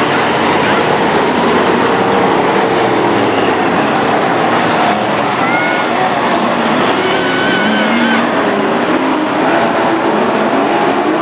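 Engines of a pack of sportsman-class dirt-track stock cars racing, a loud continuous drone whose pitch rises and falls as the cars go through the turns.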